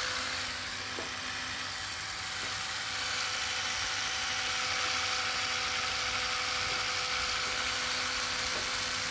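Small electric motor whirring steadily: a continuous high whir with a steady hum beneath it, getting slightly louder about three seconds in.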